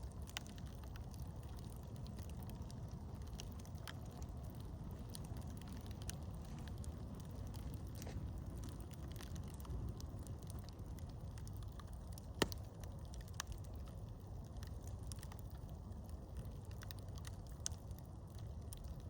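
Campfire burning: a steady low rumble with scattered crackles and one sharp pop about twelve seconds in.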